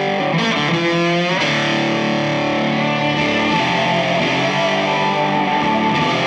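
Rock music led by a distorted electric guitar, with notes bending in pitch about a second in.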